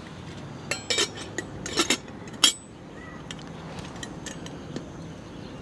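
Metal lid clinking and tapping against a stainless steel cook pot as it is fitted on. There are several sharp clinks in the first two and a half seconds, the loudest at the end of them, then only a few faint taps.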